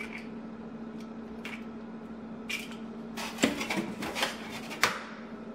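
Eggshells clicking and tapping as eggs are cracked and separated by hand over a plastic container, a few sharp taps scattered through, the strongest just past the middle and near the end, over a steady low hum.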